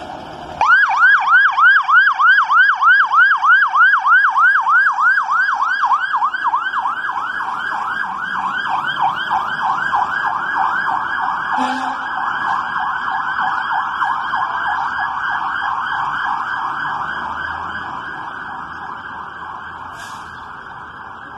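Fire engine's electronic siren in a fast yelp, about four to five rising sweeps a second, starting suddenly about half a second in. Later the sweeps blur together and the siren fades as the engine drives away.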